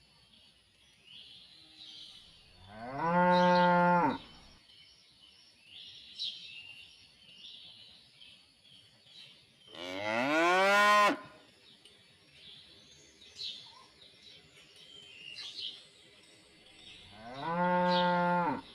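Cattle mooing three times, about seven seconds apart: each moo is a long low call that rises in pitch at the start and then holds.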